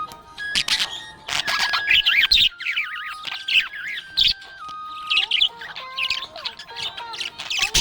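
Budgerigars chirping and warbling in quick, busy bursts over a background melody.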